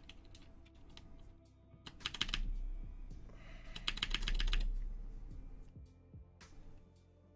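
Mechanical keyboard keys clacking in two quick runs of clicks, about two seconds in and again around four seconds in.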